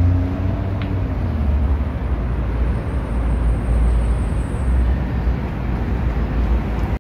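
City street traffic noise: a steady low rumble of passing vehicles with an even hiss above it.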